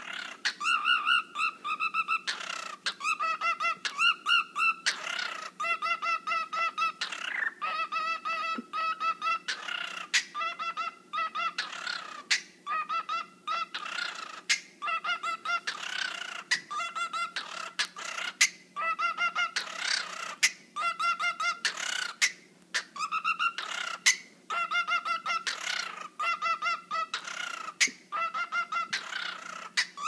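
Cockatiel singing a rapid stuttering warble: strings of quick repeated pitched notes broken up by short harsh squawks, repeating in a wobbling, dubstep-like rhythm.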